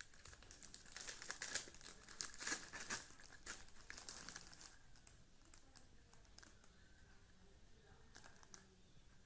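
Quiet crinkling and rustling as the sphygmomanometer parts and their wrapping are handled and fitted together, busy for the first four to five seconds, then fading to a few faint crackles.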